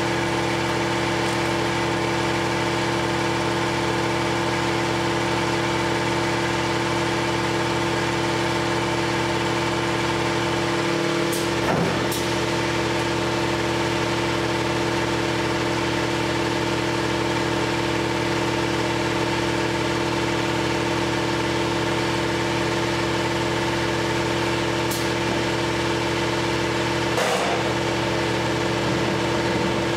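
Steady drone of shop machinery running, with a few brief knocks about twelve seconds in and again near the end.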